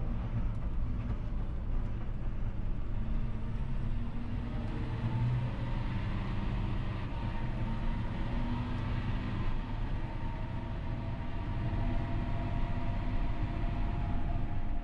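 John Deere 6R 215 tractor's six-cylinder diesel engine running steadily under load while pulling a no-till seed drill.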